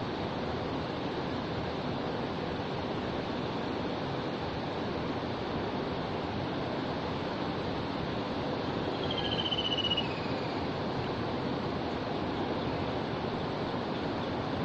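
Shallow river water flowing in a steady, even rush. About nine seconds in, a short high chirp falls in pitch.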